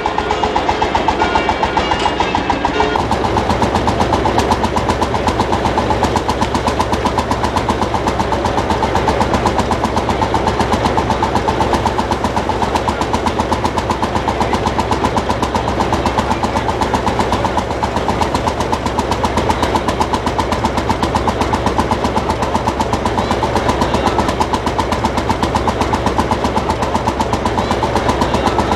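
Vintage tractor engine running steadily with a fast, even firing beat. A deeper hum joins about three seconds in.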